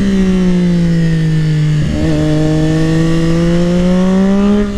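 Triumph Daytona 675R's three-cylinder engine through a full aftermarket exhaust, heard on board while riding. Its note sags at first, breaks briefly about two seconds in, then climbs slowly and steadily as the bike pulls again.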